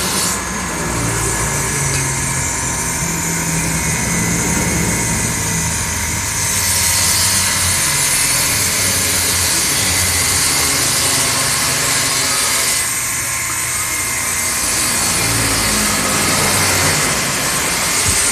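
Jenang and madu mongso cooking machine running steadily: a continuous motor hum with a strong hiss over it, changing slightly in tone a couple of times.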